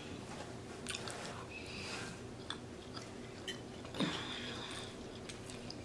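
A person chewing food, with small wet mouth clicks and smacks, and one slightly louder mouth sound about four seconds in.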